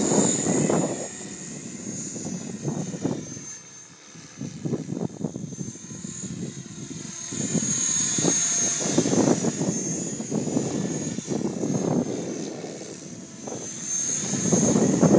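Align T-Rex 550E electric RC helicopter in flight: a high-pitched whine from its motor and drive, with the noise of the rotor growing louder and fading as it moves about.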